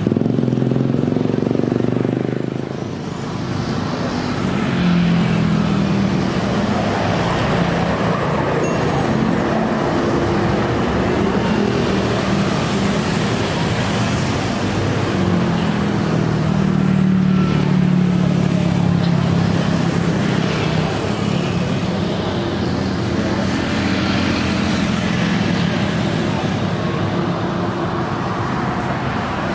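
CFM56-7B jet engines of a Boeing 737-900ER running at taxi power, a steady rushing hum with low droning tones that swell and fade. It starts with a louder jet rush that drops away within about three seconds.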